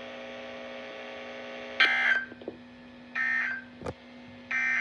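NOAA Weather Radio Emergency Alert System end-of-message tones: three short bursts of SAME digital data screech, about a second and a half apart, marking the end of the tornado warning. A steady low hum sits underneath.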